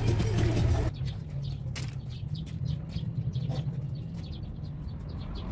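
Small birds chirping faintly over a steady low hum; a louder, noisier passage in the first second stops abruptly, and there is a single click a little later.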